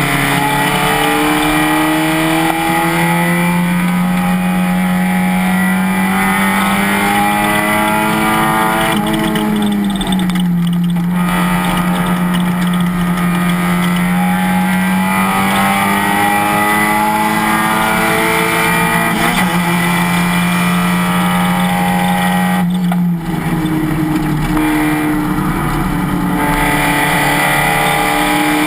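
Race car engine running hard at high revs, its pitch climbing slowly as it pulls. There is a gearshift about ten seconds in and a brief lift off the throttle about 23 seconds in.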